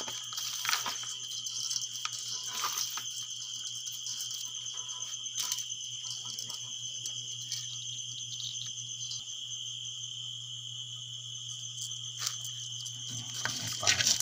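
Crickets trilling in a steady, shrill chorus, with a low steady hum underneath. A few short clicks and knocks come through, with a small flurry of them near the end.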